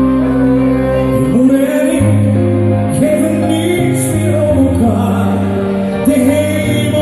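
A man singing live into a microphone over accompanying music with sustained chords; his voice comes in with a rising glide about a second in and carries the melody from there.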